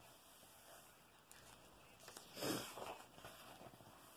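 A single paper page of a colouring book being turned: one brief rustling swish about halfway through.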